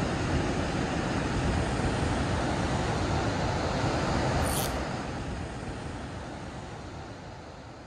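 Steady rush of water pouring down the concrete spillway of a large dam. It fades out over the second half, with a brief high hiss about halfway through.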